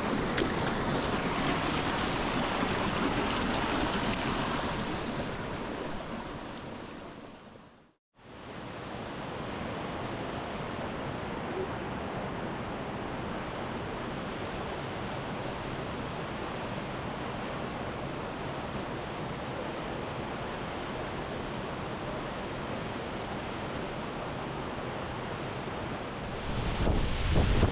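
Steady rushing water with some wind on the microphone. It fades out to silence about eight seconds in, then returns a little quieter and steady, growing louder near the end.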